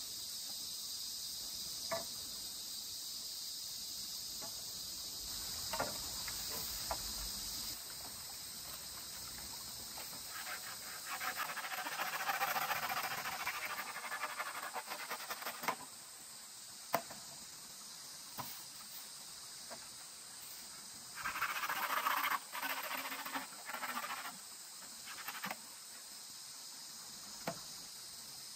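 A steady, high-pitched chorus of forest insects. It is broken by scattered sharp clicks and by two louder stretches of rough, scratchy noise a few seconds long, one a little before halfway and one about three-quarters of the way in.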